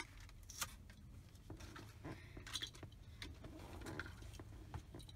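Crinkling and clicking of a toy car's card-and-plastic blister pack being torn open by hand, in scattered short bursts over a low steady hum.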